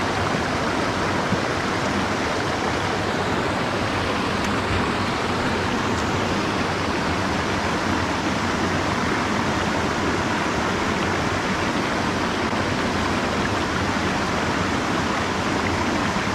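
Mountain stream rushing steadily over a small cascade and rocky riffles, an even continuous splashing hiss.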